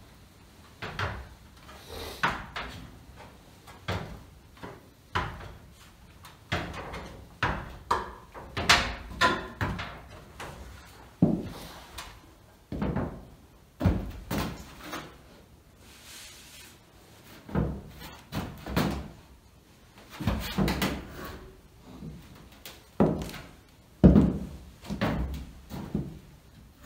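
A string of irregular knocks and clunks from handling a black stove pipe and from steps on an orange stepladder as the worker climbs down, the loudest clunk near the end.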